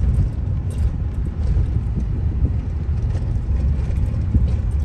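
Road and engine rumble inside a car's cabin as it crawls slowly over a bumpy road, with light rattles and knocks from the bumps.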